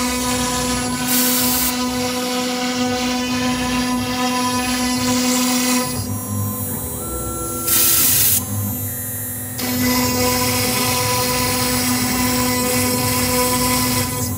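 1325 CNC router's spindle whining steadily as the bit engraves MDF; the whine eases around six seconds in and comes back near ten seconds. Short loud bursts of hiss come about a second in and again about eight seconds in.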